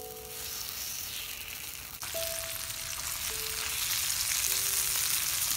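Pork belly slices sizzling and frying in their own fat on a hot cast-iron griddle plate, a steady crackling hiss that grows louder toward the end.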